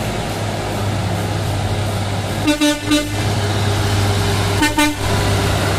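Nissan Diesel CWA 260 tanker truck's diesel engine running steadily, heard from inside the cab. A vehicle horn toots twice in quick succession about two and a half seconds in, and once more near the end.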